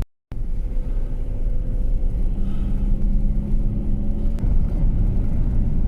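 Steady engine and road rumble heard from inside a minivan while driving, with a faint steady hum. The sound drops out for a moment right at the start, and a single click about four and a half seconds in ends the hum.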